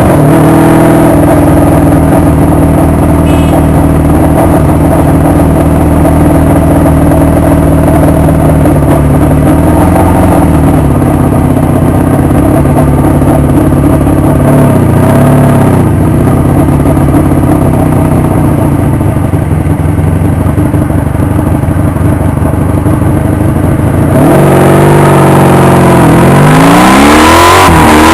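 Honda VF750 motorcycle's V4 engine running loud at a steady speed, then rising in pitch as it accelerates hard over the last few seconds, climbing through a gear change.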